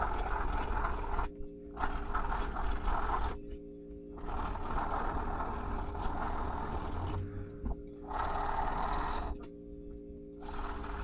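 Handheld rotary tool with a spinning brush attachment scrubbing a diecast metal casting, cleaning the bare metal. It runs in about five bursts of one to three seconds, with short pauses between.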